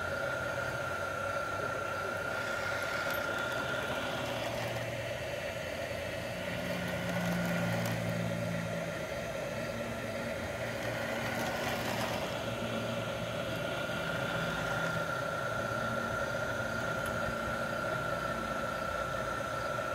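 Electric motor of a model diesel switcher locomotive running on the layout track: a steady whine with wheel rumble. The whine fades for several seconds in the middle as the locomotive moves away, then grows again as it returns.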